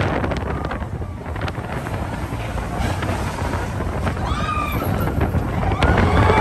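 Steel roller coaster train rumbling along its track, with wind buffeting the microphone. Riders scream briefly about four and a half seconds in.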